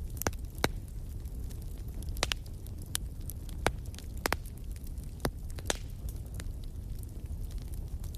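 Wood fire crackling in a fireplace: sharp, irregular pops and snaps over a low, steady rumble.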